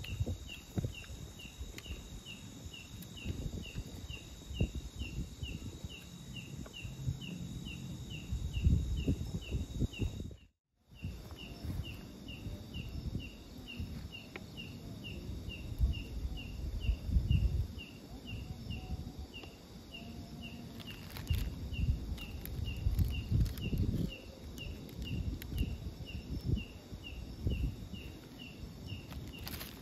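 Outdoor ambience: a high chirp repeating evenly about twice a second, over rustling and knocking close to the microphone. The sound drops out completely for a moment about ten seconds in.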